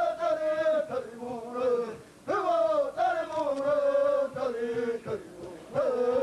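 Indigenous Brazilian men chanting together in unison, in short repeated phrases that each jump up and slide down in pitch, with brief breaks between them.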